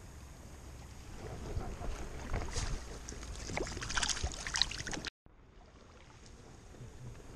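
Water splashing and sloshing in a shallow, running river as a hooked fish is brought in, with scattered splashes and handling knocks from about one to five seconds in. The sound cuts out for a moment, then only the steady rush of the river remains.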